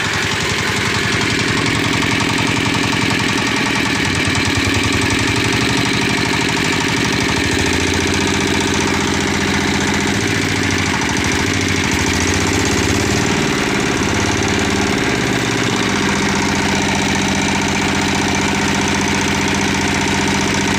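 Single-cylinder diesel engine powering a winch, running loud and steady with a knocking beat. Its speed rises and falls several times from about four seconds in to about sixteen seconds in as the throttle is worked, then settles.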